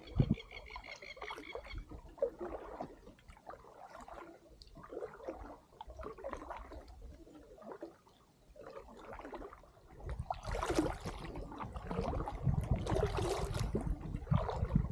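Kayak paddle strokes splashing and dripping in calm water, in irregular bursts that grow louder about ten seconds in. A brief high call sounds near the start.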